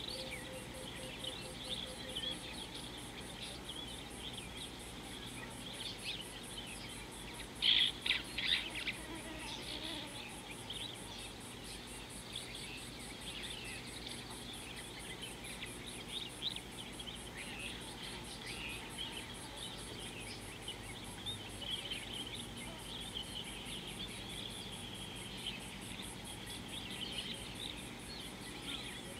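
Steady, high, pulsing chirr of insects, with birds calling on and off; a short, louder cluster of bird notes about eight seconds in.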